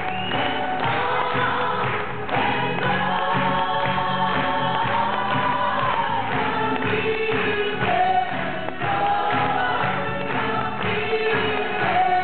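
Live stage-show music: several voices singing together in held notes over a band accompaniment, heard from the audience seats.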